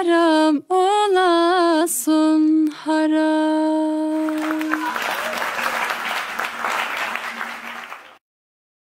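A woman singing the last words of a Turkish folk song with no instruments under her, in short phrases ending on a long held note. Then a group applauds for about three seconds, and the sound cuts off suddenly.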